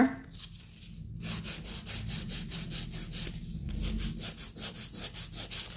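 Hand nail file rasping back and forth across a gel-acrylic hybrid (acrygel) nail in quick, even strokes, several a second, shaping the nail to a taper. The filing pauses briefly about a second in and again about three and a half seconds in.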